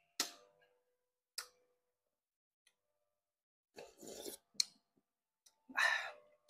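Metal spoon clinking against a ceramic bowl twice, then a slurp of rice porridge off the spoon about four seconds in, and a louder scrape and clink of the spoon in the bowl near the end.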